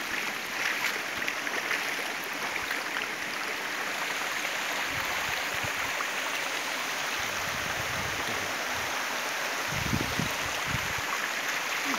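Small waterfall and stream rushing: a steady wash of water noise, with a few low bumps near the end.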